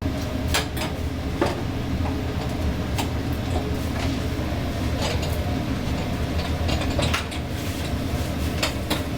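Working kitchen noise: a steady low machine hum with scattered sharp clicks and clatters throughout.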